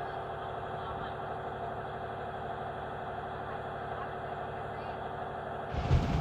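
Small boat's engine running steadily, a continuous drone with a held hum. A brief loud, low thump near the end.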